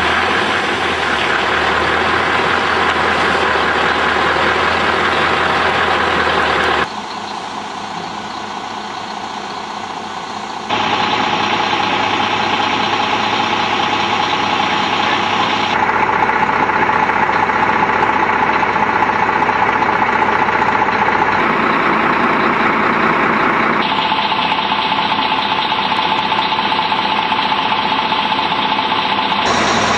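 Diesel lorry engine idling steadily; the sound changes abruptly several times where the footage is cut, with one quieter stretch.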